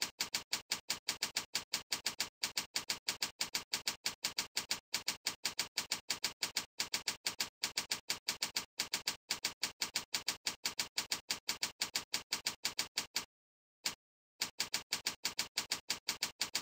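Computer keyboard keystrokes clicking fast and evenly, about six a second, one click per character as a long command is typed. The typing stops briefly near the end, with a single click in the gap, then picks up again.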